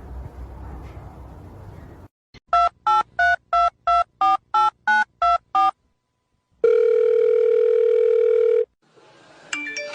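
Telephone keypad dialing: ten quick touch-tone beeps, about three a second, then after a short pause a single steady ring tone lasting about two seconds. A short sliding sound follows near the end.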